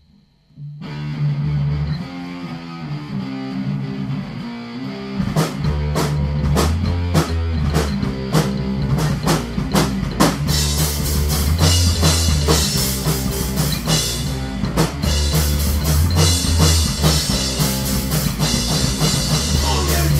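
Punk rock band playing live, instrumental opening of a song: bass and guitar start alone about a second in, steady drum hits join about five seconds in, and the full band with cymbals comes in around ten seconds.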